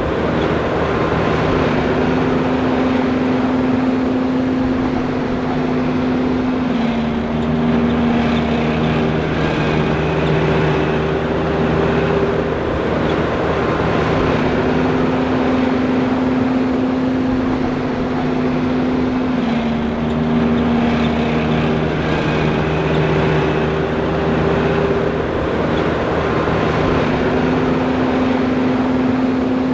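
John Deere 5820 self-propelled forage harvester running steadily. Its hum steps down in pitch and back up again in a repeating cycle of about 12 seconds.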